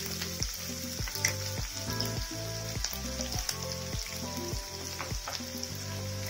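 Chopped onions sizzling and frying in hot oil in a nonstick pan, in the early stage of being softened toward light brown. Background music with a steady beat plays under the sizzle.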